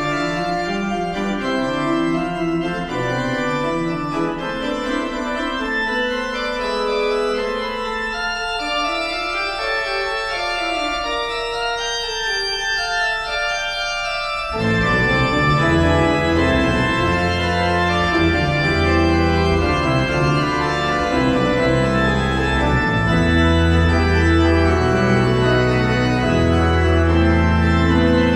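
Organ music: sustained chords, with deep bass notes coming in about halfway through and the music growing louder.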